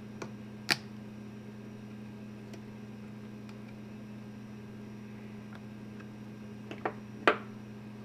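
A few sharp clicks of needle-nose pliers and loosened diodes against the charger's metal heat sink: one just under a second in, then two near the end, the last the loudest, over a steady low hum.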